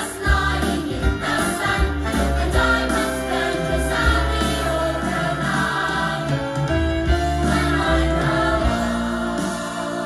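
A stage-musical song with a choir singing over instruments and a strong bass line, played back through B&W 804S floor-standing loudspeakers and heard in the room through a phone's microphone.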